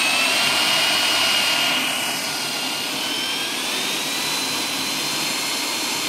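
Corded electric drill running continuously with a steady high whine, its long bit boring into sheet metal; the whine rises somewhat in pitch midway through.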